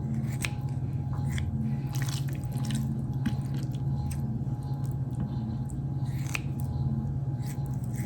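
Kitchen knife cutting raw chicken into chunks on a cutting board: scattered sharp taps and soft wet squishes over a steady low hum.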